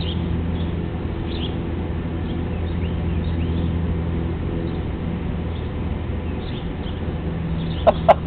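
Outdoor yard ambience: a steady low hum with faint bird chirps scattered throughout. Near the end come a few short, sharp sounds.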